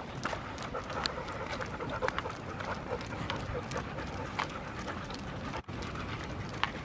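Golden retrievers panting as they walk on leashes, with scattered light clicks and taps over a steady background noise.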